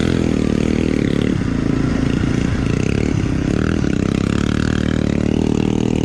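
Bajaj Pulsar NS200's single-cylinder engine running steadily at low speed through a modified silencer while the bike rides over loose gravel, with a few short sharp crackles.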